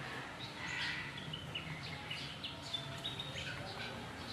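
Birds chirping: many short, high calls overlapping one another, over a steady low background hum.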